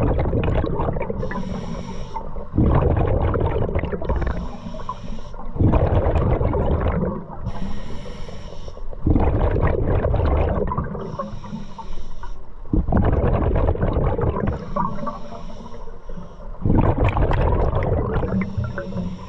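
Scuba diver breathing through a regulator: a short hissing inhale, then a long rush of exhaled bubbles, repeating steadily about every three to four seconds.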